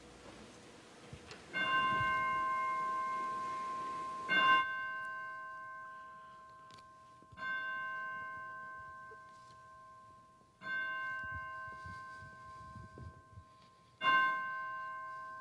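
A bell tolled five times at the same pitch, about every three seconds, each stroke ringing out and dying away slowly.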